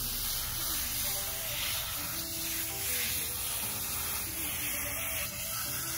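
Garden hose spray nozzle hissing steadily as water is sprayed onto a dog's wet fur to rinse out hair dye, with background music.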